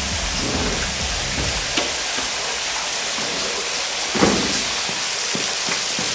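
Showers running: a steady hiss of spraying water, with a brief louder noise about four seconds in.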